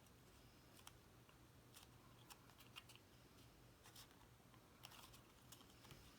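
Near silence: room tone with a low hum and a dozen or so faint, scattered light clicks and ticks of cardstock pieces being handled.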